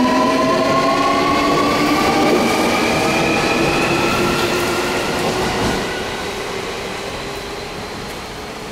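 Keio 1000 series train pulling away under its Toyo IGBT-VVVF inverter: the motor whine rises slowly in pitch, in several tones at once, as the train accelerates. It fades away after about six seconds, leaving a steady hiss of heavy rain.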